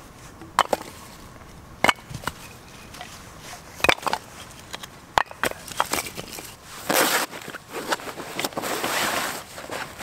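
Split firewood pieces knocking onto a log pile, five or so sharp wooden knocks a second or so apart. From about seven seconds in, a steady rustle of a nylon carry bag being handled and opened on dry leaf litter.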